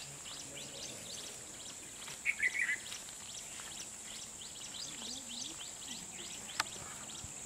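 Outdoor bush ambience: birds chirping over and over in short falling notes above a steady high-pitched drone, with a louder warbling bird call about two seconds in.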